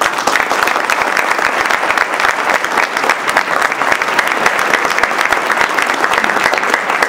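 A large audience applauding: dense, steady clapping from a room of over a hundred people.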